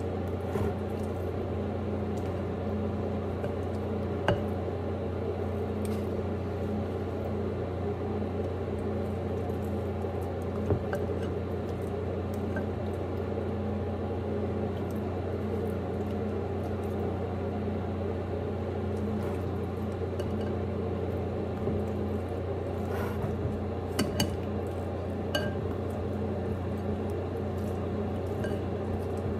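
Steady hum of an electric oven's fan, with a few sharp clinks and clicks of metal tongs against a mixing bowl and baking sheet as marinated chicken thighs are laid out.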